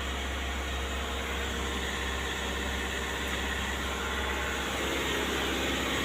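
Mahindra Scorpio S5's diesel engine running steadily during a service DPF regeneration started from a scan tool, getting slightly louder about five seconds in.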